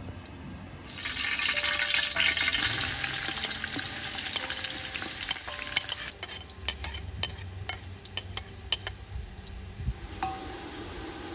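Chopped onions dropped into hot melted butter in an aluminium pot, sizzling loudly from about a second in and then dying down. A metal spoon taps and scrapes against the plate and pot rim as the onions are pushed in, with a single clink near the end.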